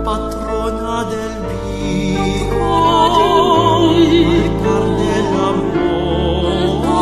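A hymn in Spanish sung by a classical-style voice with wide vibrato, holding long notes over steady instrumental accompaniment that changes chord every couple of seconds.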